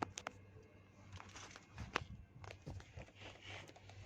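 Faint scattered clicks and light rustling from hands handling the car door and its trim panel.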